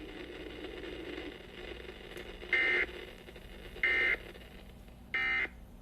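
Emergency Alert System end-of-message data tones: three short identical bursts of the digital code, about a second and a half apart, marking the end of the alert message.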